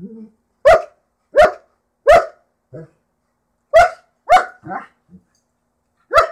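German Shepherds play-fighting, one barking in six short, sharp barks, two close together near the middle. A few softer grunts fall between the barks.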